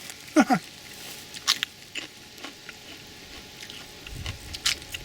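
A person biting and chewing something crunchy picked fresh from the garden, with a few sharp snapping clicks and a brief hum about half a second in.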